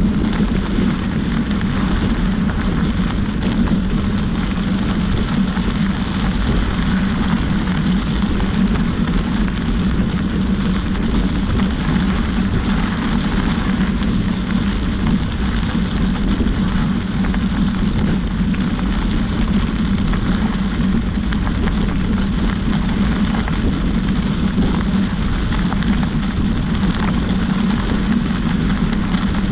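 Steady rumbling noise of moving along a trail: wind over the microphone mixed with wheels rolling on a compacted gravel path. It keeps an even level throughout.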